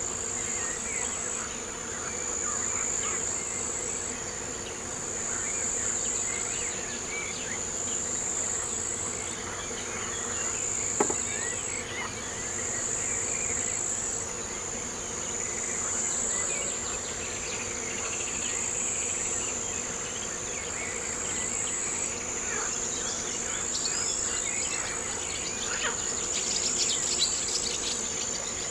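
Insects trilling steadily at a high pitch in long, pulsing phrases, with scattered short bird chirps throughout. A single sharp click about eleven seconds in.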